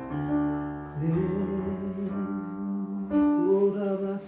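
Slow worship music on keyboard: held chords that change about once a second.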